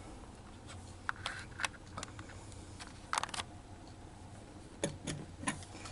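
Scattered sharp mechanical clicks from the switches of a Victor Champion mechanical adding machine being worked by hand, about eight in all, with a tight cluster about three seconds in.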